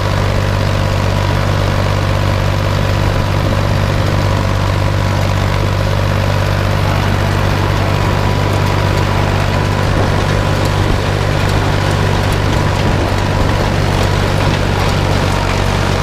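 International tractor engine running at a steady speed, driving a round baler, with an even low drone.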